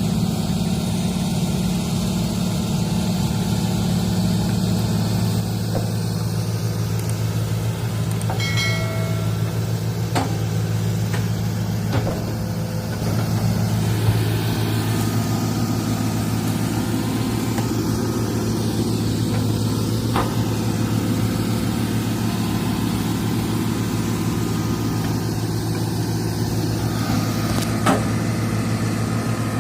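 Excavator's diesel engine running steadily, with the note shifting slightly about halfway through and a few sharp knocks over the top.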